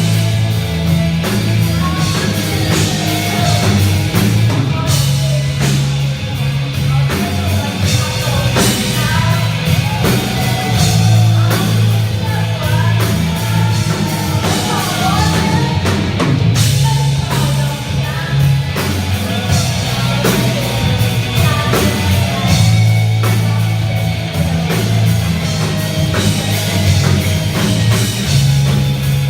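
Rock band playing live at full volume: heavy, distorted guitars over bass and a drum kit in a metal style.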